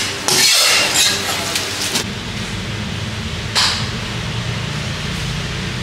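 Food stall background noise: bursts of hissing near the start and again about three and a half seconds in, a few light clicks and clatters between one and two seconds in, then a steady low hum.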